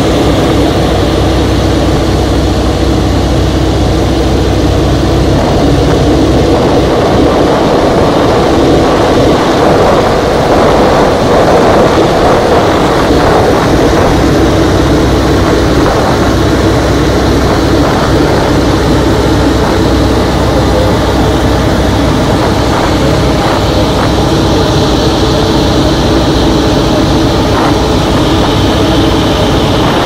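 Nanchang CJ-6 trainer's nine-cylinder radial engine and propeller running loud and steady, heard from inside the cockpit in flight.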